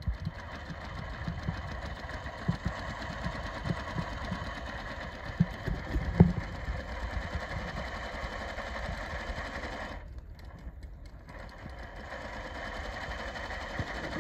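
Industrial lockstitch sewing machine running, stitching fold-over elastic through a binder attachment, stopping briefly about ten seconds in. Scattered knocks of handling, the loudest a sharp knock about six seconds in.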